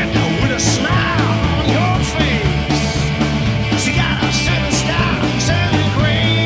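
Rock-and-roll band music: a steady bass line and drums with cymbal hits under a lead line of sliding, bending notes.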